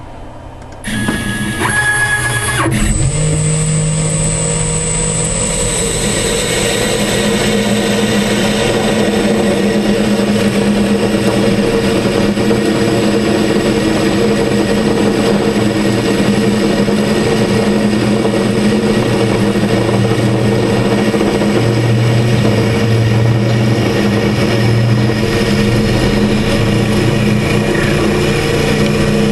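9x20 benchtop lathe, CNC-driven, running a profiling cut in 1215 free-machining steel. The lathe starts up about a second in, and a high, steady whine joins shortly after over the steady hum of the motor and gears.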